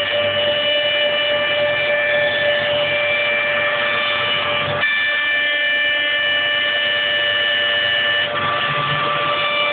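Homemade CNC mill's spindle whining steadily at a high pitch over a hiss of cutting as it faces its work surface flat. The whine's upper tones shift briefly a few times.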